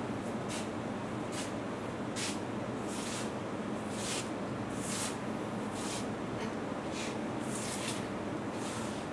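Steady room hiss with soft, short hissing puffs about once a second, and no speech.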